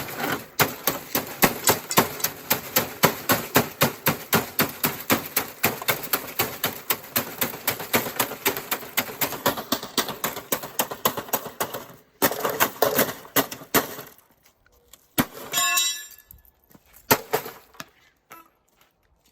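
Rapid, repeated strikes at about four or five a second, breaking the rest of a TV screen off its frame. They stop about twelve seconds in, then come a short second burst, a brief ringing clang and a few scattered knocks.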